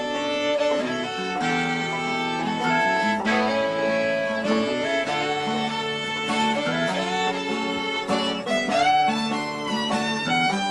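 Background music: a fiddle playing a melody over guitar accompaniment.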